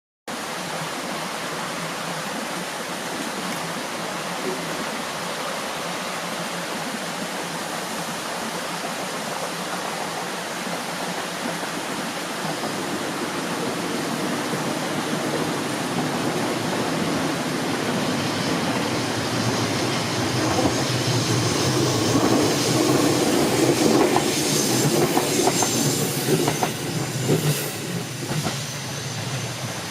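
Minobu Line electric train running past on the rails: its noise swells steadily through the middle, is loudest about three quarters of the way in with wheels clacking over rail joints, then eases off near the end.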